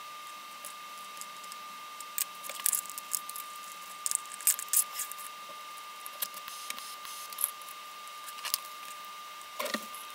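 Scattered light clicks and clinks of small metal parts being handled, scissors, a coil spring and a handwarmer's catalyst head, with a fuller clunk near the end. A steady faint high tone runs underneath.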